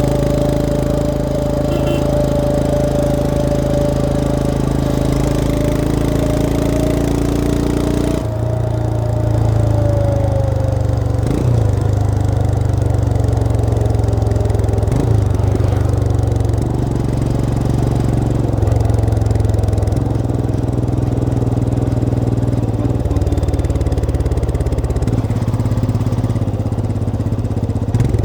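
Royal Enfield Himalayan 411's single-cylinder engine running under way, heard from the riding position. A faint whine rides over it for the first several seconds; about eight seconds in the note changes abruptly, then shifts in steps several more times.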